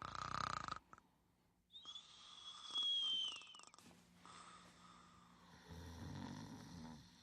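Cartoon snoring sound effects. A short rasping snore comes first, then a high, thin whistle that dips in pitch as it ends, then a low rumbling snore near the end.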